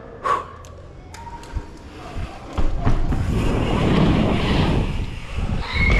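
Wind buffeting the camera microphone during a street trial bike ride. A few sharp knocks come in the first couple of seconds, then the wind noise grows loud and steady about two and a half seconds in.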